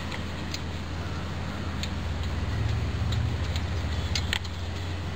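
Scattered light clicks and handling noises from hands working on a small single-cylinder engine that is not running, over a steady low hum.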